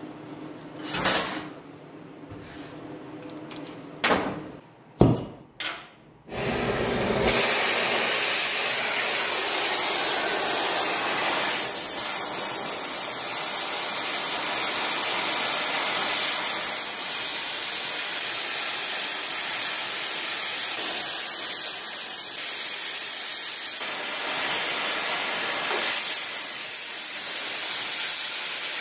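Oxy-fuel cutting torch hissing steadily as it heats and cuts through steel plate. Before it starts, a few short, loud bursts of sound come about a second in and again around four to six seconds in.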